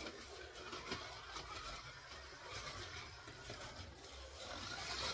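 Scalextric Holden VL Commodore slot car running laps on a plastic track: the small electric motor and the tyres and guide make a noisy, uneven whirr with a few clicks. It grows louder near the end as the car comes closer.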